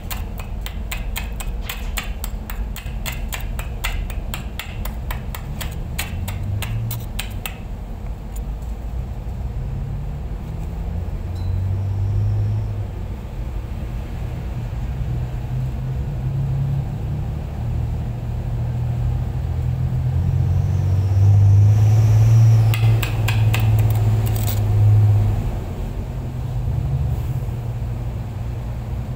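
Rapid, even crackling from work at a steel pipe weld joint for about the first seven seconds, then it stops. Under it a low engine rumble runs throughout and grows louder from about twenty-one to twenty-five seconds in.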